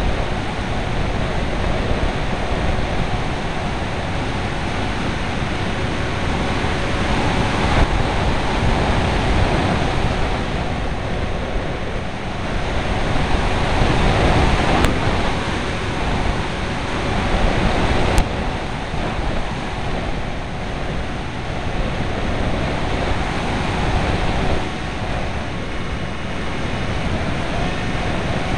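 Steady rush of wind over the onboard camera's microphone of a Wing Dragon FPV plane in flight, with the plane's motor and propeller humming faintly and steadily underneath.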